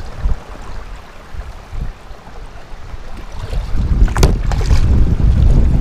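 Wind buffeting the microphone over choppy waves lapping against a kayak as it is paddled through rough water; the wind rumble grows louder from about halfway through, with a brief splash about four seconds in.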